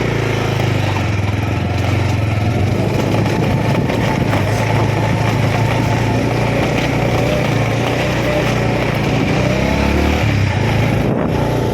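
Motorcycle engine running steadily while riding, with a loud steady rush of wind noise over it.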